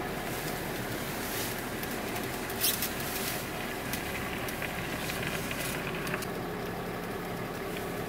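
Steady low running noise of a Dodge Ram dually pickup rolling slowly, heard from inside the cab, with a short rustle about two and a half seconds in.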